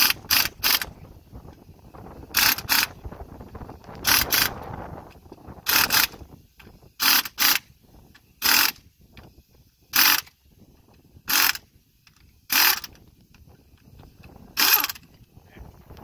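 Cordless impact driver run in short bursts on the bolts of a baler gearbox cover, about ten bursts spaced a second or two apart, some in quick pairs.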